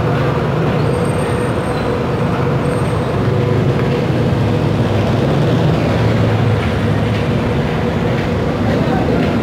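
Third-generation Kinki Nippon Sharyo light rail train running past, a steady low rumble that swells slightly in the middle.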